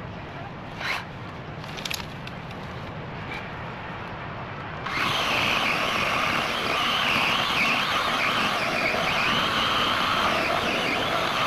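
Battery electric chainsaw starting up about five seconds in and running steadily, cutting a fallen tree. A couple of faint clicks come before it.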